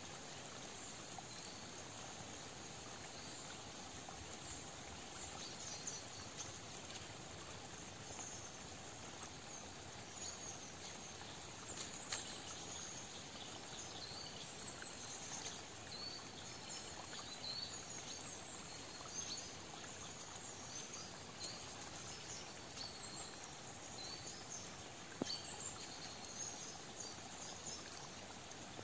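Faint autumn forest ambience: a soft steady hiss with many scattered, short, high chirps and calls, and a couple of faint clicks about twelve and twenty-five seconds in.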